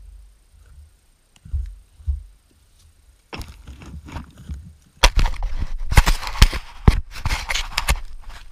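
Handling noise from a camera being picked up off the ground by a gloved hand: a few dull thumps, rustling and scraping from about three seconds in, then loud knocks and scrapes against the camera from about five seconds in.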